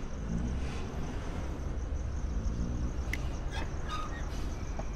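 Night-time outdoor ambience: crickets chirping steadily over a low rumble, with a few faint clicks about three to four seconds in.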